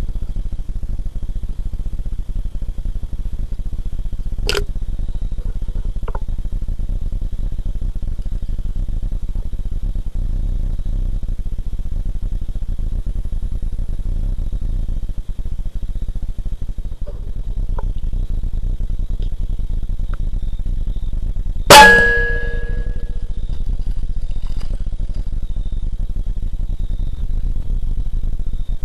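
Single shot from a Hatsan Hercules .25-calibre PCP air rifle: a sharp crack with a brief metallic ring, heard after about twenty seconds of steady low rumble. A faint click comes a few seconds in.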